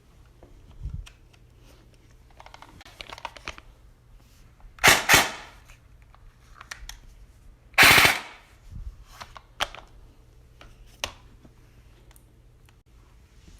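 E&L SOPMOD II airsoft electric rifle firing. A quick, quieter rattle comes about three seconds in, then two louder short bursts about three seconds apart, with scattered single clicks between.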